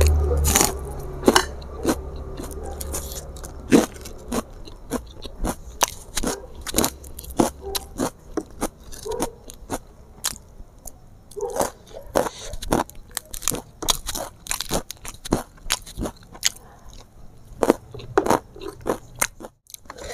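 Close-miked eating of river snail curry: chewing with many irregular sharp crunches and clicks.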